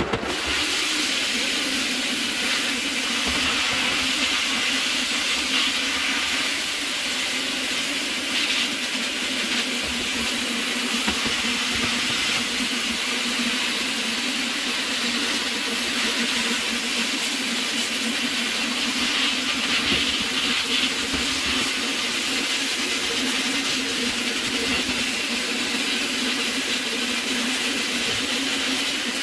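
Shop-built vapour blaster in use: a steady hiss of compressed air and water slurry jetting from the brass blast nozzle onto a painted metal part, over a steady low hum.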